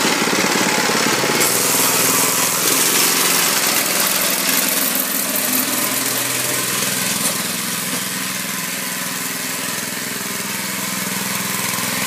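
Harbor Freight Predator 212cc single-cylinder four-stroke engine running on a go-kart as it drives, held below full throttle because the engine is still in its break-in period. The engine note is louder for the first several seconds, quieter for a few seconds past the middle, then louder again near the end.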